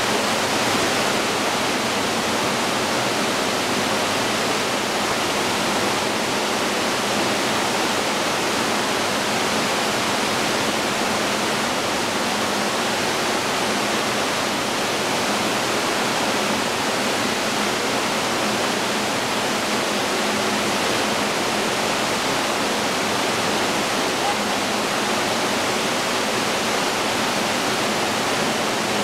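Steady rush of running water pouring down open water slides, an even hiss that does not change.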